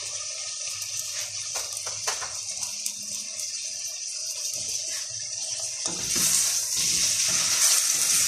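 Onion, carrot and potato frying in a stainless steel pot, a steady sizzle. About six seconds in it grows louder as a spatula stirs the vegetables.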